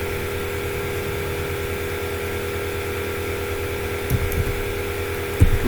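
Steady electrical hum with several held tones over a low rumble, and a few soft low thuds near the end.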